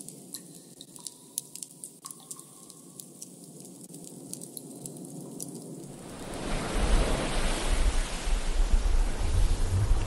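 Water dripping at irregular intervals over a quiet hiss. About six seconds in, a loud rush of sea surf and wind with a deep rumble takes over.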